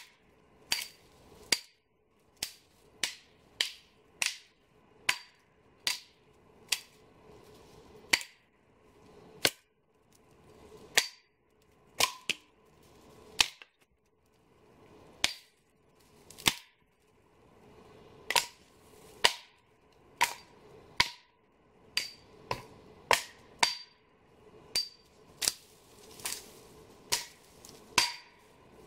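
Dry dead lower branches of conifers cracking and snapping as they are broken off the trunks: a long run of sharp single snaps, about one a second, irregularly spaced.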